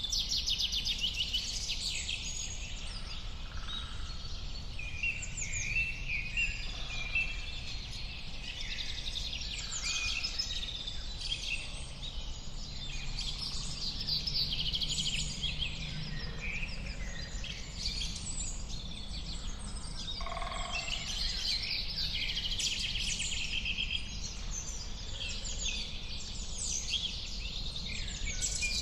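Many birds chirping and singing at once, overlapping short chirps and trills with no pause, over a steady low rumble.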